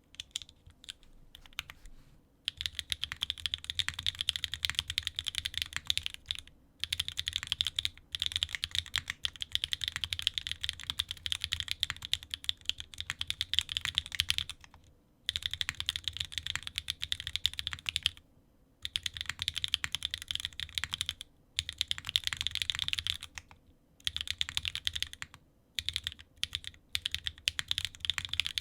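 Fast typing on a Frog mini mechanical keyboard with Swagkey x Gateron Modern Gray switches, stock lube, in an aluminium plate with no foam, under GMK Dots R2 keycaps. A few single keystrokes at first, then runs of rapid clacking broken by short pauses.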